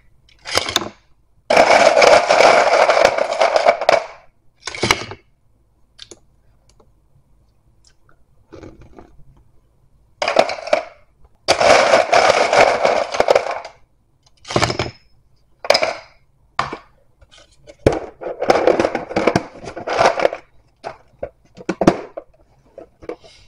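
Ice rattling and cracking inside a plastic ice-maker box as it is handled, in three long bursts with shorter knocks and clatters between.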